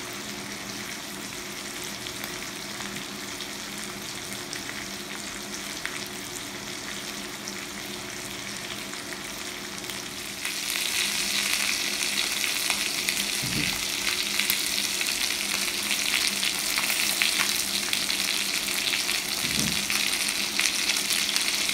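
Chicken breasts with asparagus and garlic frying in butter in a nonstick pan, a steady sizzle. About ten seconds in the sizzle turns louder and crisper as the pan browns.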